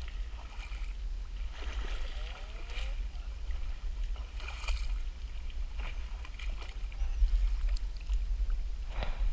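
Water sloshing and splashing as a seine net is hauled by hand through a shallow, weedy fish pond by someone wading, with a steady low rumble underneath and a few sharper splashes.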